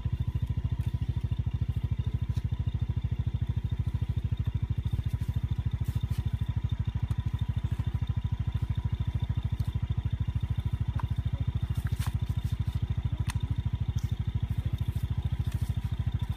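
A small engine running steadily off-screen, a rapid, even low chugging that does not change, with a few faint clicks in the second half.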